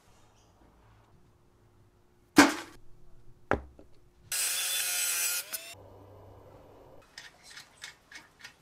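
Hand tools working on metal tricycle parts during assembly. Two sharp knocks about a second apart are followed by a harsh metallic scrape with a ringing tone that lasts about a second and a half. Near the end comes a quick run of small clicks.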